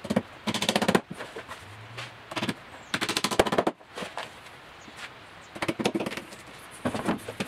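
Hammer striking wood as a thin wooden strip is tapped into a plywood rocker-board form. The blows come as quick runs of very rapid strikes, with single knocks in between.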